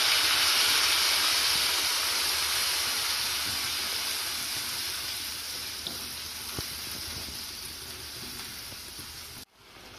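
Wet onion paste sizzling in hot ghee with whole spices: a loud frying hiss that slowly dies down as it is stirred, with a couple of light clicks a little past halfway. It cuts off suddenly shortly before the end.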